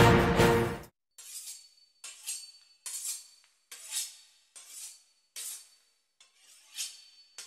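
Knife sawing back and forth through the pastry crust of a beef Wellington, a crisp scraping stroke roughly every 0.7 seconds. Before this, music cuts off abruptly about a second in.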